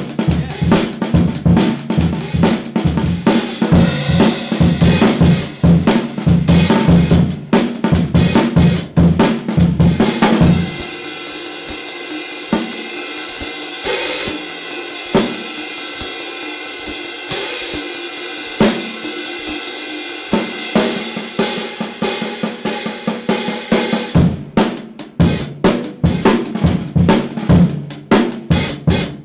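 16-inch hand-hammered B20 bronze hi-hats played in a drum-kit groove with snare and bass drum. About ten seconds in, the drums drop out and cymbal wash rings on with only a few strokes; around twenty seconds in the groove starts again.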